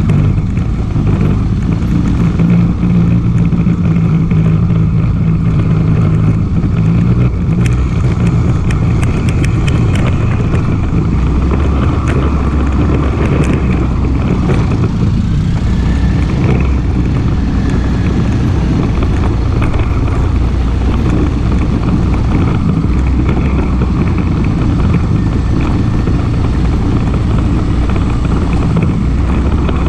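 ATV engine running steadily under way. Its pitch drops about ten seconds in, and a few sharp knocks or rattles come in the middle.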